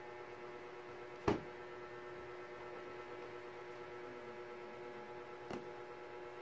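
A steady low electrical hum with two sharp knocks. The first, loud, comes about a second in as the spiral sketchpad is set down on the wooden table. The second, fainter, comes near the end as the pencils are laid on the pad.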